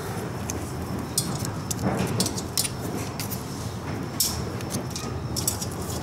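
Scattered small metallic clicks and light rattles as a clutch cable end and its fittings are worked by hand into place on an ATV's clutch cover, over a steady low hum.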